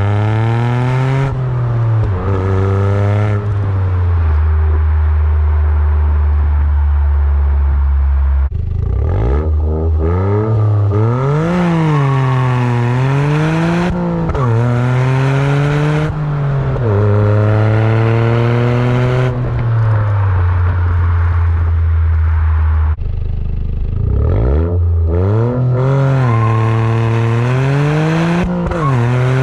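Toyota GR Yaris's turbocharged 1.6-litre three-cylinder engine heard at the tailpipe through a GRP Engineering aftermarket exhaust while driving. The revs climb and fall back again and again through gear changes and lifts off the throttle, with two stretches of steady cruising tone between.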